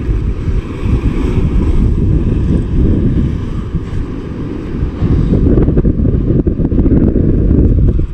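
Wind buffeting the microphone in heavy gusts over surf washing against the rocks, getting louder about five seconds in.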